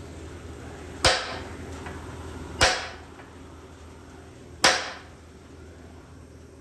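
Three hard hammer blows on a steel frame rivet, each a sharp metallic crack with a short ring, about a second and a half to two seconds apart, as the leftover rivet is driven out of the truck frame.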